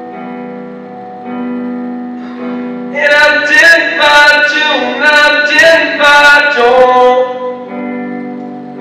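Live song performance: sustained accompaniment chords, then a male voice sings a phrase over them from about three seconds in. The singing stops and the chords carry on alone near the end.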